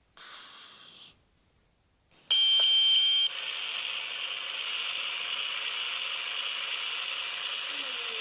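Alarm clock going off. A loud high beep comes about two seconds in, then the alarm keeps sounding steadily, a little quieter.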